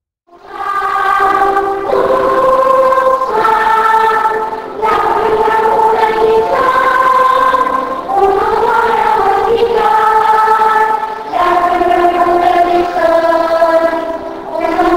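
Choir singing slow, sustained chords. It starts abruptly out of silence about half a second in.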